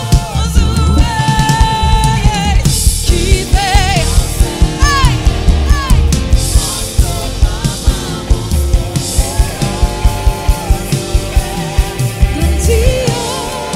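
Live contemporary worship music: a female lead singer and backing vocalists singing wavering, ornamented lines over a full band of drum kit, keyboard and electric guitar, with a steady, regular drum beat.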